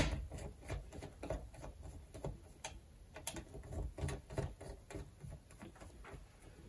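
Small screwdriver working the screws of a plastic strip connector, loosening them: a sharp click at the start, then many faint, irregular ticks and scrapes of metal on the screw heads.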